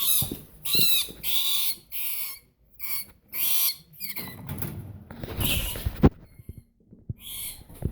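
A mad rat squealing and hissing in short, loud bursts, about eight of them, some with a squeaky pitch. A sharp knock comes about six seconds in.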